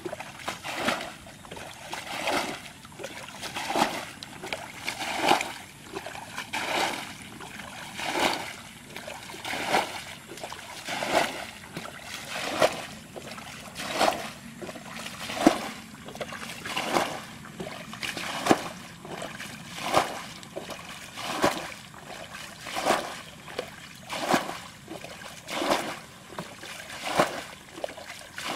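Water being scooped from a shallow muddy ditch with a pot and thrown out, a splash about every one and a half seconds, as the ditch is bailed to catch fish by hand.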